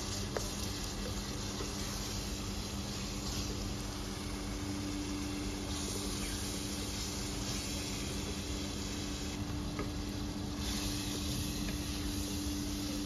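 Beef mince frying in oil with tomato-onion masala in a pot, sizzling steadily while it is stirred and browned (the bhuna stage), over a steady low hum.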